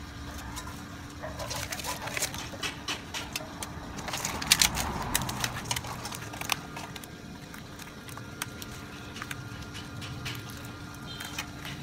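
Hands packing chunks of vegetable and leaves into a metal cooking pot around a whole chicken: scattered knocks, taps and scrapes against the metal, busiest about four to five seconds in.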